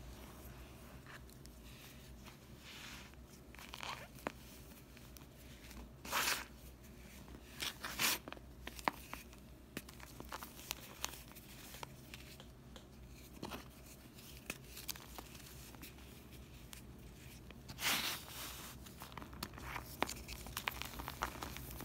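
Fingers crumbling and snapping apart dry pressed slabs of scouring-cleanser powder and gym chalk: an irregular run of soft crunches and crackles, with a few louder crumbles now and then.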